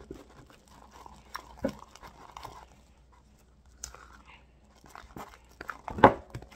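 Homemade white glue slime being kneaded and mixed by hand: irregular wet squelches and small clicks, with one louder squish about six seconds in.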